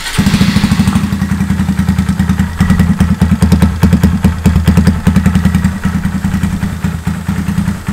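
A 2019 Honda Monkey's 125 cc single-cylinder four-stroke engine running steadily with a fast, even exhaust pulse, just after starting. It breathes through an aftermarket exhaust and intake, with the ECU reflashed for them and a cam.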